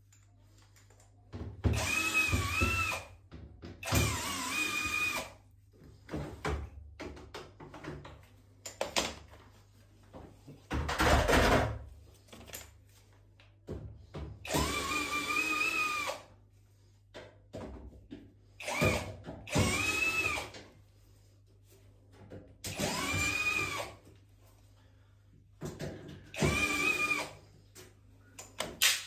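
Power drill run in short bursts, about seven times, its whine rising as it speeds up and falling as it slows each time. A louder, noisier clatter comes about eleven seconds in.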